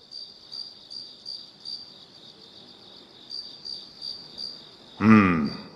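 Crickets chirping in a steady, even rhythm, about three chirps a second. Near the end a man gives a short low 'mm'.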